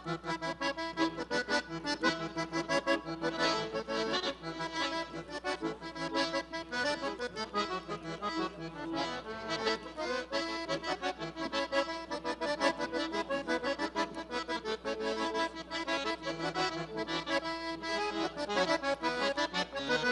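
Piano accordion playing an instrumental tune in quick, even notes over bass and chords.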